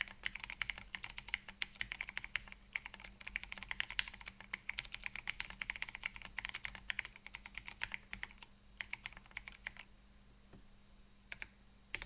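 Typing on a MechWild Orange Boy Ergo mechanical keyboard with Krytox-lubed Gateron Brown tactile switches and PBT keycaps, set on a desk mat. Steady fast keystrokes slow about eight seconds in and stop near ten, with a couple of single key presses near the end.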